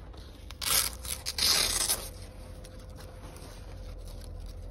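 Velcro hook-and-loop straps on a fabric tractor canopy being ripped open: two quick tearing rips close together, about a second in.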